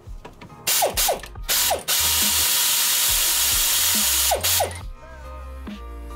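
Pneumatic air ratchet loosening the front brake caliper bolts: a few short bursts of the tool, then one long run of about two and a half seconds, then a last short burst.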